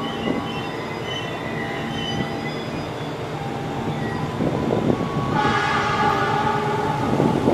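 Diesel locomotive at the head of an approaching freight train sounding its multi-tone horn in one long blast, from about five seconds in for about two seconds, over the steady rumble of the train.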